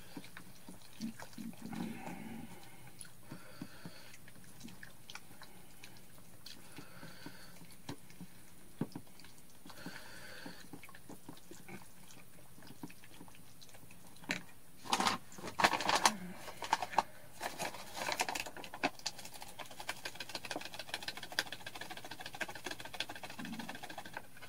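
Thick pancake batter of frying mix, water and kimchi being stirred in a bowl: soft wet squelching with small clicks of the utensil against the bowl, getting louder and busier in the second half.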